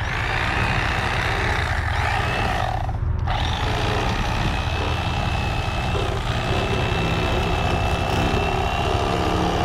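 Mr. Twister Piranha electric fillet knife running steadily as its blades cut along a crappie, a constant motor hum with a thin high whine.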